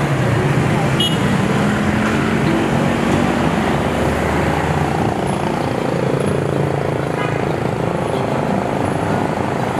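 Steady road traffic noise from a busy street, with vehicle engines running; around the middle one engine note falls in pitch.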